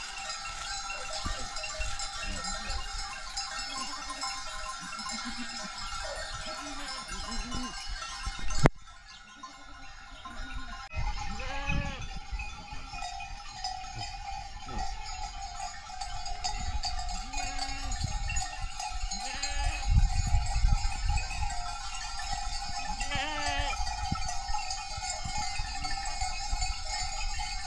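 A flock of sheep and goats bleating over a steady ringing of many livestock bells. A sharp click comes about a third of the way in, after which the sound is quieter for a couple of seconds before the bleating and bells carry on.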